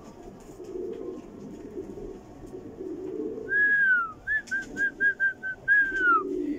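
Norwich Cropper pigeons cooing in low, rolling phrases. About halfway in, a clear whistle cuts in on top: a falling note, six short quick notes, then another falling note.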